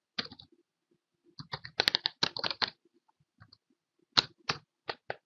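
Computer keyboard typing: a quick run of keystrokes, a short pause, then several separate key presses toward the end.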